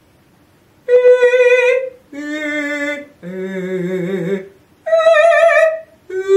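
A woman singing held notes on the vowel "ee" with two fingers between her teeth to keep her mouth open, a vocal exercise. From about a second in come five separate notes, each about a second long, jumping between high and low pitches, some with vibrato.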